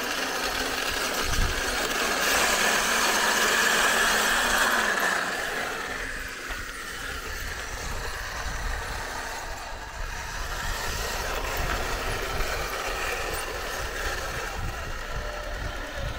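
Radio-controlled Tiger I model tank running: a steady mechanical engine-and-motor noise, louder for about the first five seconds, then quieter with a low rumble and small knocks as it goes over gravel.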